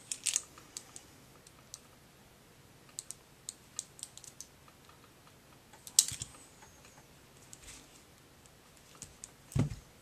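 Scattered light clicks and taps of hands handling a battery's wire lead and a small hand tool, with a sharper click about six seconds in and a dull thump near the end.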